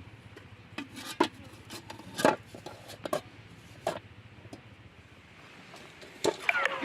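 Kitchenware being handled: about half a dozen scattered knocks and clinks. Near the end they bunch together with a short squeak that falls in pitch.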